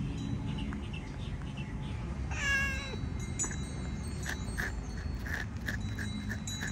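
Calico cat meows once, a short wavering meow about two and a half seconds in. From about four seconds in, the small round bell on its collar jingles lightly, about three times a second, as the cat presses against the phone.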